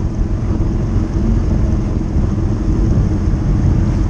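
Motorcycle under way, its engine running steadily with a dense low rumble.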